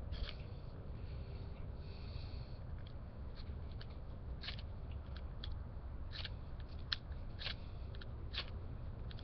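A ferrocerium fire-starter rod being struck again and again, a string of short, sharp scrapes at an uneven pace, trying to throw sparks onto tinder. A low wind rumble on the microphone runs underneath.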